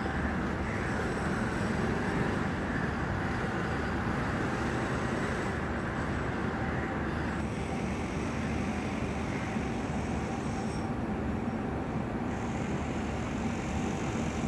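Steady rumble of street traffic, with a passing vehicle fading out about halfway through.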